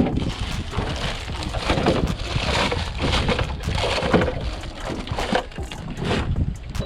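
Wind buffeting the microphone over water sloshing and slapping against the boat, in uneven surges.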